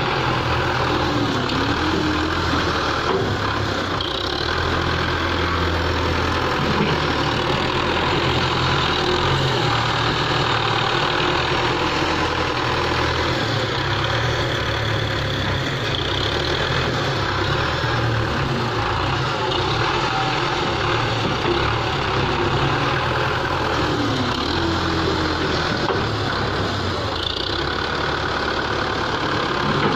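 Belarus 510 tractor's diesel engine running as it works a front loader, its speed rising and falling several times as the bucket is lifted, dumped and lowered.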